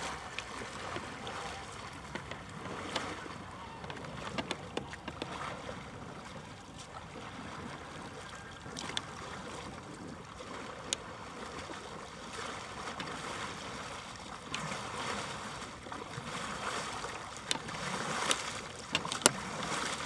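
Canoe under way: steady wash and splashing of water against the hull as it is paddled, with scattered sharp knocks, a few louder ones near the end.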